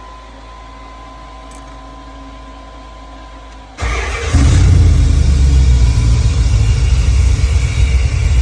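A faint steady tone for the first few seconds, then an LS V8 engine with FiTech Ultimate LS fuel injection is cranked, catches almost at once and runs loudly at idle while the injection system relearns its idle.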